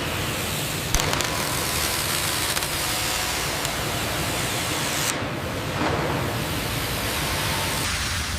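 Steady rushing, hiss-like noise of industrial machinery running, with a sharp click about a second in.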